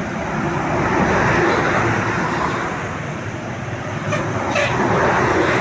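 Road traffic passing close by: a steady rush of engines and tyres that swells about a second in and again near the end.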